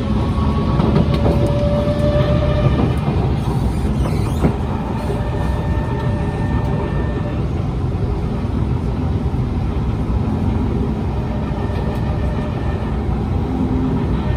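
Kawasaki C151 metro train running, heard from inside: a steady, loud rumble of wheels and traction motors with short whining motor tones at shifting pitches. A single sharp knock comes about four and a half seconds in.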